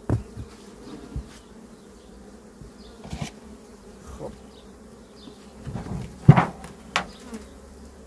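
Honey bees buzzing around the hives in a steady drone, with several knocks and thumps as the hive is opened, the loudest about six seconds in when the wooden lid is lifted off.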